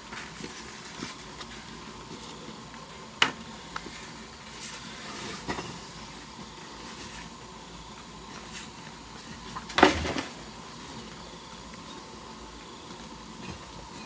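A long bamboo pole knocking against brick walls and tree branches as it is handled and set in place: a few sharp knocks, one about three seconds in and the loudest near ten seconds in, over a steady low background noise.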